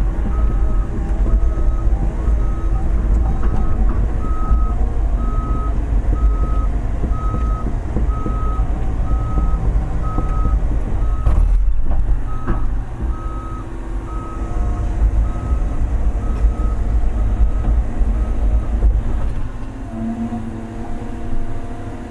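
Large excavator's diesel engine running under load while its travel alarm beeps steadily, a little faster than once a second, as the machine tracks. Near the end the beeping stops and the engine note drops.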